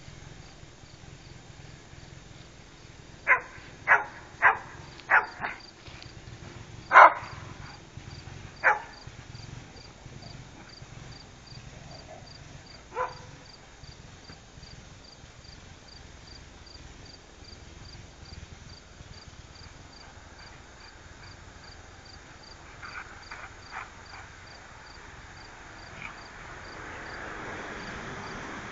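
A dog barking: a quick run of about seven sharp barks a few seconds in, then a single bark some seconds later. Insects chirp in a steady, regular rhythm behind it.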